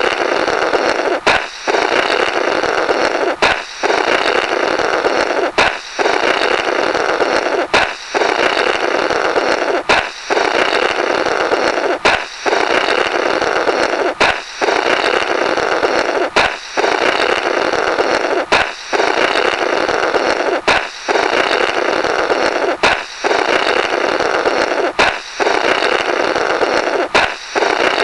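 A balloon pops and air is then blown through the burst rubber in a long, raspy, comical 'blorrrt'. The same effect repeats about every two seconds, each time with a sharp crack and a brief gap.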